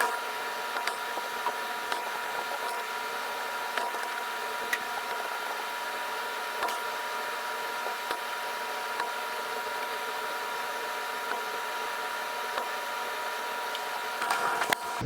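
Steady machine hum and hiss with a strong high whine, light clicks scattered through, and a brief louder rustle near the end.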